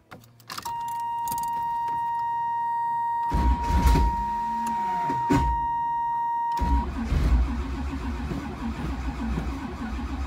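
Starter cranking the cold, flooded dual-carburettor 383 stroker V8 of a 1985 Camaro Z28 on a weak battery, trying to get it to fire. A steady high-pitched tone sounds from just after the start until about six and a half seconds in. The cranking begins about three seconds in and turns rougher and uneven once the tone stops.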